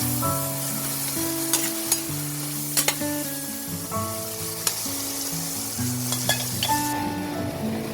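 Food sizzling as it fries in a pan, with sharp clicks of a utensil stirring against the pan. The sizzle stops about seven seconds in.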